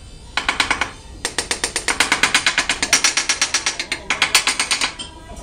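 Rapid mechanical hammering from a tool, about ten strikes a second: a short burst, a brief pause, then a longer run that stops shortly before the end.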